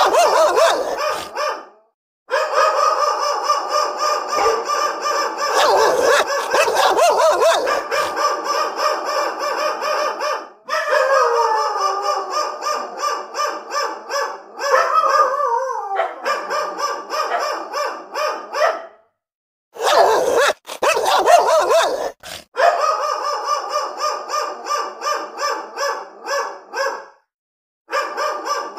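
Angry dogs barking rapidly and almost without pause. About halfway through, the barks give way for a few seconds to falling, whining yelps. The barking stops abruptly for a moment a few times.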